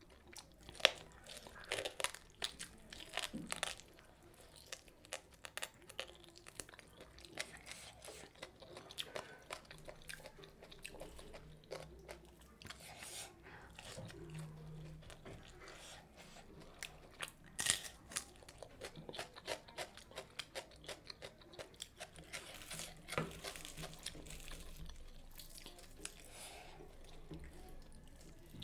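A person chewing and biting food close to the microphone: steady, irregular crunching and mouth clicks, with a few sharper crunchy bites standing out. The food is methi puri eaten with mutton curry, green chilli and onion.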